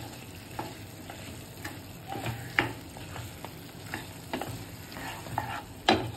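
Spatula stirring fried chicken strips through thick, sticky sauce in a pan, with irregular knocks and scrapes against the pan over a low sizzle. The loudest knock comes near the end.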